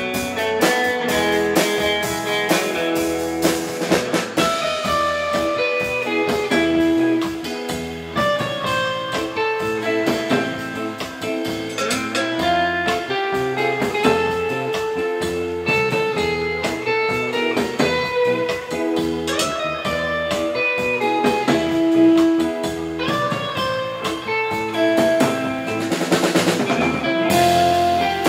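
Live instrumental rautalanka band: a clean, twangy lead electric guitar plays the melody over electric bass and a drum kit. Cymbal crashes sound about four seconds in and again near the end.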